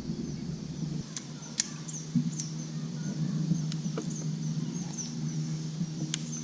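A small bird chirping over and over in short, high, quickly falling calls, over a steady low hum. A few sharp clicks come through.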